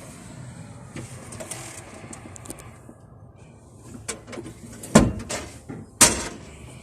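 Knocks and clunks in an excavator cab: scattered small clicks, then two loud knocks about a second apart near the end.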